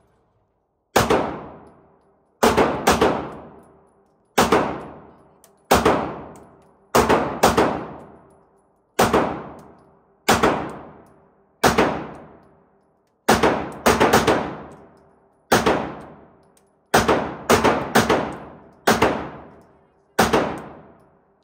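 Semi-automatic pistol fired repeatedly in an indoor shooting range: about twenty shots, mostly a second or so apart with some quick pairs, each one echoing off the range walls.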